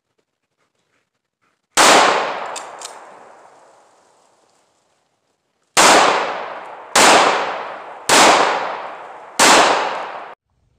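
Five pistol shots from a Springfield Armory XD .45 ACP: one about two seconds in, then after a pause of about four seconds four more roughly a second apart, each trailing off in a long echo. The last echo cuts off abruptly.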